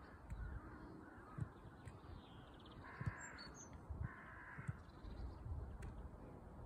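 A crow cawing twice, two harsh calls about a second apart, with a few soft low thuds.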